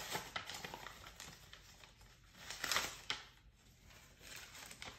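Paper rustling and crinkling as an envelope and a folded letter are handled and opened, in short bursts with the loudest about two and a half seconds in.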